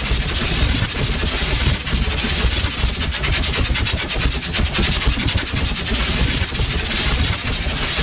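Propane poofer flame effects firing one after another: a continuous loud rush of burning gas with a deep rumble underneath, fluttering rapidly for a couple of seconds around the middle.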